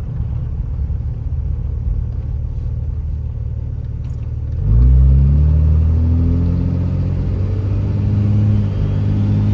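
Cummins 5.9 L inline-six turbo-diesel rumbling at low speed, then about halfway through the throttle opens: the engine gets suddenly louder and its note climbs steadily as the truck accelerates in first gear through the freshly built 48RE automatic transmission.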